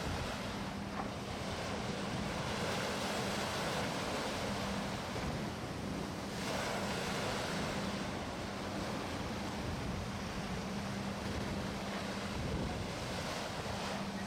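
Sea surf washing on a shore, with wind on the microphone. Under it runs a faint low hum that comes and goes.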